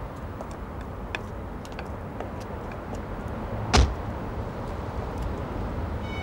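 A Toyota sedan's door shutting once, a single heavy thud a little under four seconds in, over the steady hum of street traffic.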